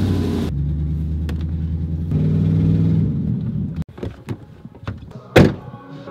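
A Dodge Dakota pickup's engine, just started, settles into a steady idle with a slight rise in revs about two seconds in, and the engine sound breaks off abruptly near four seconds. A few light clicks follow, then one loud thunk of the truck's door shutting a little after five seconds.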